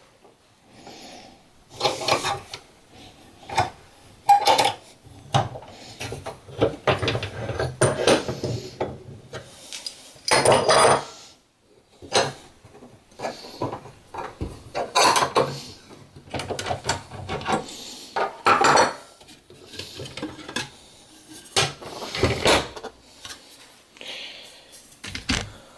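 Workshop handling noise: irregular knocks, clinks and scraping as the bent aluminium sheet, clamps and makeshift supports are taken off and moved about on the bench.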